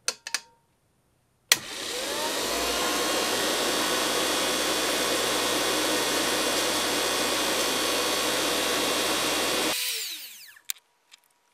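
A few clicks, then the Redi-Line 12-volt dynamotor (a DC motor spinning a 120-volt AC generator) kicks on with a sharp click, spins up with a rising whine and runs with a loud steady whir while lighting a test bulb. About ten seconds in it cuts off and winds down with a falling whine. The run shows that the 12-volt motor on this side works and puts out 120 volts.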